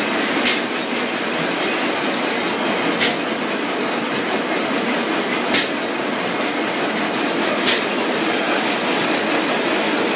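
Crossley Brothers horizontal stationary gas engine running with its flywheel turning: a steady mechanical running noise broken by a sharp crack every two to three seconds, four times in all.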